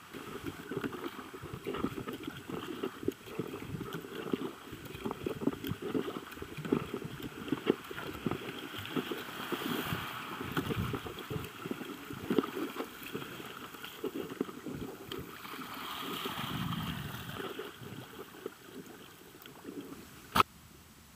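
River water rushing and splashing around a kayak's hull as it runs a choppy riffle, with irregular small splashes and knocks from the paddling. A single sharp click comes near the end.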